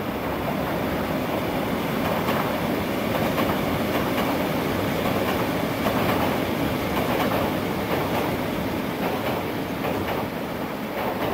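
Hakone Tozan Railway electric train running across a steel truss railway bridge, a steady rumbling clatter of wheels on rail with scattered clicks. It grows louder toward the middle as the train crosses and eases off near the end.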